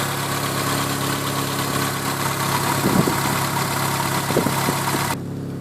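Renault Clio engine idling with the bonnet open: a steady hum with an unfamiliar noise in it that the owner can't place. About five seconds in, the sound abruptly turns quieter and duller.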